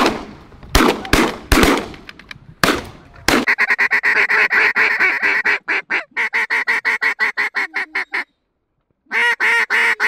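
Several shotgun shots in quick succession over the first three seconds, then a duck call blown in a long run of rapid, evenly spaced quacks, a pause of about a second, and another run of quacks near the end.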